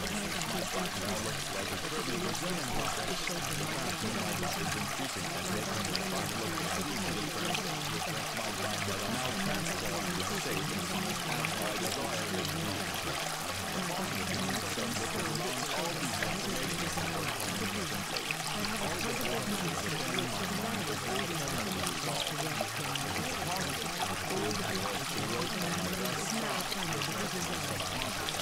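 Steady rushing noise like running water, even and unbroken throughout.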